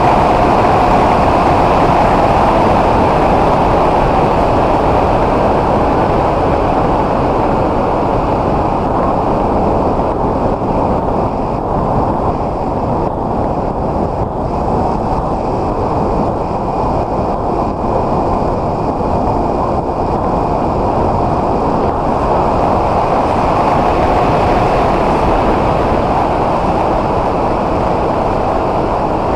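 Electric motor and propeller of the S800 FPV plane running steadily in flight, heard from its onboard camera under a constant rush of wind noise. A faint motor whine fades out in the middle and comes back near the end.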